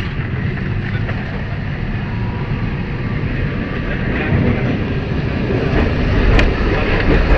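Electric tram running on street rails: a steady low rumble that grows louder in the second half, with a sharp click about six and a half seconds in.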